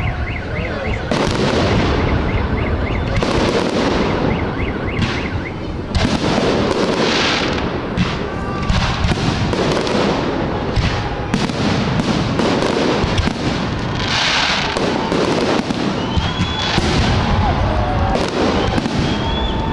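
Fireworks display: aerial shells bursting one after another in quick succession, booming and crackling without a break.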